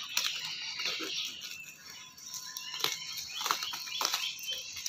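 Small knife slitting packing tape and cardboard on a parcel, with several short sharp rasping cuts and rips, over chirping birds.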